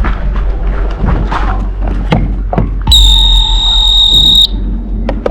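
A steady, high electronic buzzer tone sounds for about a second and a half, starting about three seconds in, then cuts off suddenly. Scattered sharp clicks and rustling come before it.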